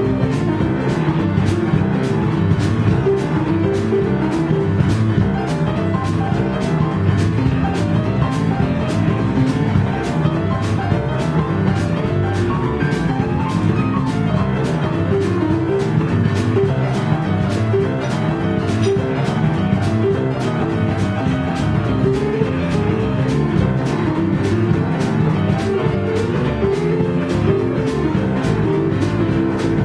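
Live blues band playing an instrumental boogie-woogie: piano on an electric stage keyboard with electric guitar, bass and a drum kit. The drums keep a steady cymbal beat throughout.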